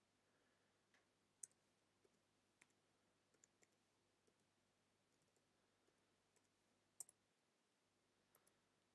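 Faint, irregular keystrokes on a computer keyboard as a command is typed, about a dozen separate clicks spread through otherwise near silence, the sharpest about a second and a half in and about seven seconds in.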